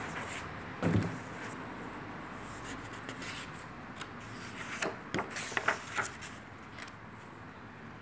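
A paperback book being handled on a table: a soft thump about a second in as it is turned over, then a quick run of light clicks and rustles of the cover and pages as it is opened.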